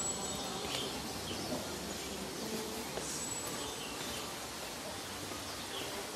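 Woodland ambience: short high animal calls, chirps repeating about every three seconds over a steady background hiss.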